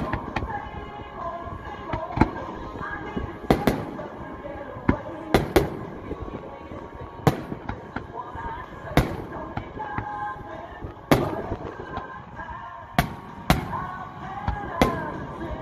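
Aerial firework shells bursting overhead, a sharp bang every one to two seconds, about a dozen in all, some in quick pairs. Music plays underneath.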